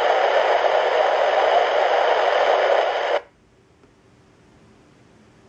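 Handheld scanner radio giving out a loud, even hiss of static with no voice in it. About three seconds in it cuts off abruptly as the squelch closes.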